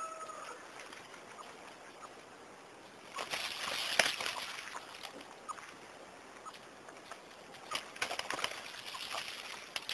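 The tail of a rooster's crow fades out at the start. Then come two spells of scuffling and wing-flapping in dry leaves as the rooster and duck fight, the first with a sharp knock about four seconds in.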